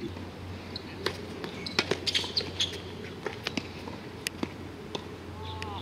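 Tennis balls knocking on a hard court: scattered sharp bounces and racket hits, clustered about two seconds in, over a steady low hum.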